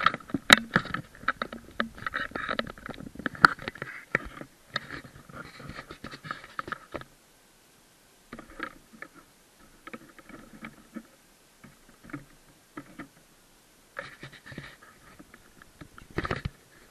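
Knocks and scrapes as a radio-controlled model pirate ship is handled and set on the water, then irregular splashing and lapping of water against its hull, close to the microphone, in short bursts with brief pauses.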